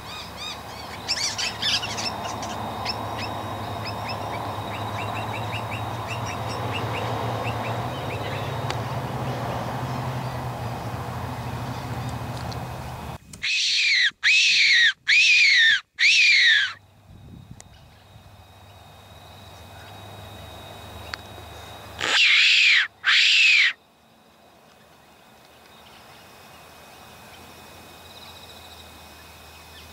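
A Silva fox whistle, a predator call that imitates a distressed animal to lure in a feral cat, is blown in four short loud calls in quick succession, then two more a few seconds later. Each call rises and then falls in pitch. Birds chirp in the background near the start.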